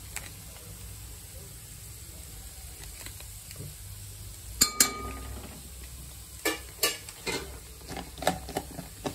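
Potatoes and capsicum frying with a low sizzle in an aluminium pot as masala powder is spooned in. About halfway through, the spoon knocks twice on the pot with a short metallic ring, followed by a run of quick knocks and scrapes of the spoon in the pot.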